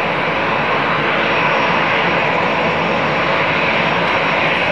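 Jet aircraft on its takeoff roll with engines at takeoff power: a steady, even rushing noise.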